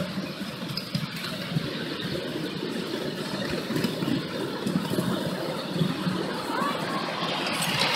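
Ride-on miniature railway train running along its track: a steady rumble of the wheels on the rails, with irregular small knocks.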